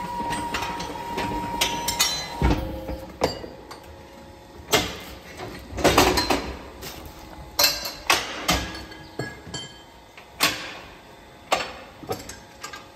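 Metal hoof-trimming crush clanking: a series of sharp, irregular metallic knocks and clinks, a dozen or so, spread unevenly over several seconds.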